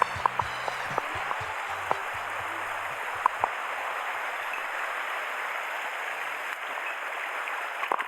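Steady rush of a mountain stream's flowing water, with background music fading out in the first few seconds and a few sharp clicks.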